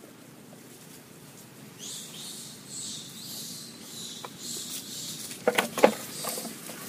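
Young macaque crying out in two loud, short, high squeals a little over five seconds in, while an adult monkey grabs and drags it.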